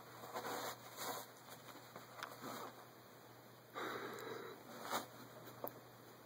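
A Siamese cat clawing and biting at a roll of toilet paper, tearing it: soft, irregular rustling and scuffling of paper, with a louder stretch about four seconds in.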